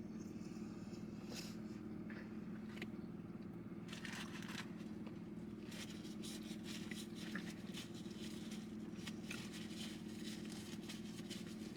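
Faint, scattered crinkling and rustling of food packaging being handled, over a steady low hum.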